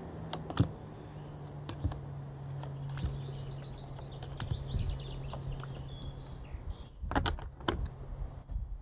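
A deck of tarot cards being shuffled and handled, giving a run of light card clicks and flicks, with a louder cluster of card snaps about seven seconds in. A bird sings a rapid repeated trill in the background from about three seconds in, over a steady low hum.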